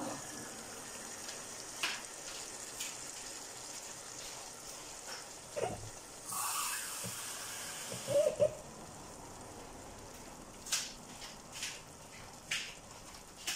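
Chicken, carrots and onion in a pan on the stove sizzling steadily in freshly added water. A brief louder hiss comes about six seconds in, and a few light clicks follow near the end.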